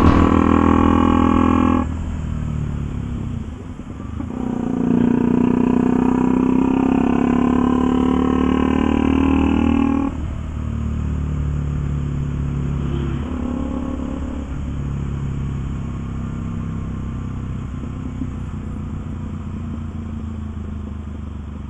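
KTM Duke 200's single-cylinder engine running under way, loud, with its pitch shifting up and down in the first half. About ten seconds in it drops to a quieter, steadier hum as the bike rolls along at lower speed.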